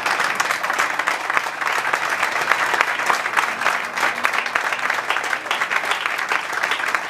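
Audience applauding steadily: the dense clatter of many hands clapping at once.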